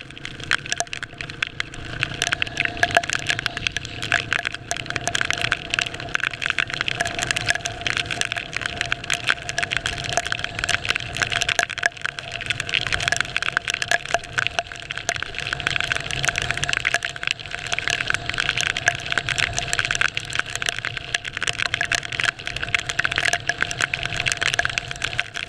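Onboard sound of a motorcycle riding a wet dirt road in the rain: a dense, steady crackle of wind and raindrops on the camera over the running engine.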